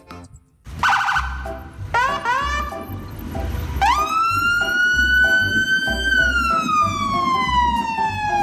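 A siren over background music with a steady beat. First a pulsing tone, then a few quick rising whoops, then a long wail that rises, holds and slowly falls.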